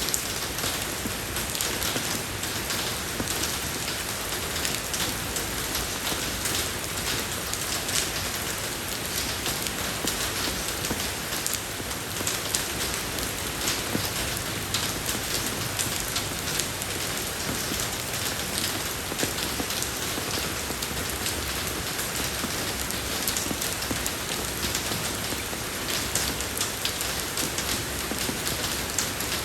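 Steady rain falling on a road surface, an even hiss filled with many small drop patters and splashes.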